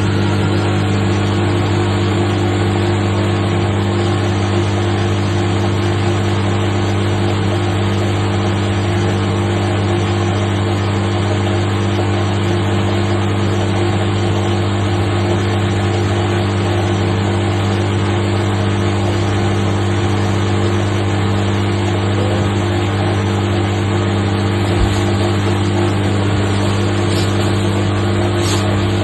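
Washing machine running its final drain and spin, dominated by a loud, steady hum from the drain pump. The pump is quite noisy but works, a sign that it is worn after the coin blockage.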